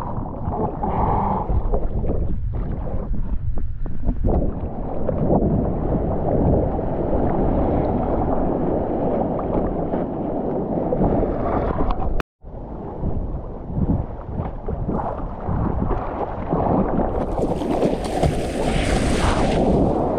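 Ocean water sloshing and splashing, with wind buffeting the microphone: a steady, dense rumbling noise. It cuts out for a moment about twelve seconds in, and a brighter hiss joins near the end.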